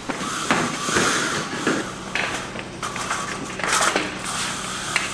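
Hurried footsteps of heavy boots and clanking equipment: a run of irregular knocks and clatters over a low steady hum.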